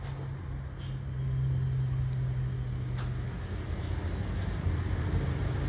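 Steady low hum of a running motor, with a faint click about three seconds in.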